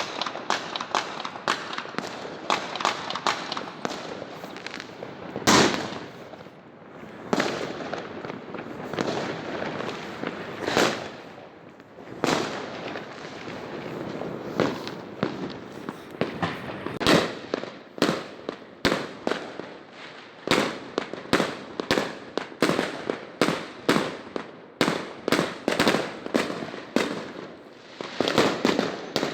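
Fireworks going off: an irregular run of sharp bangs and crackles, with a few louder booms, quickening into a dense rapid rattle of reports in the second half.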